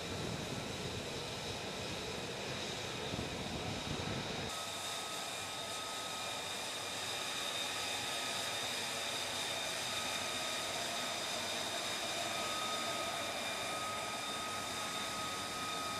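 Lockheed Martin F-35B's F135 turbofan running on the deck, a steady rushing noise with a high whine on top. The low rumble drops away abruptly about four and a half seconds in, where the footage cuts, and the whine carries on.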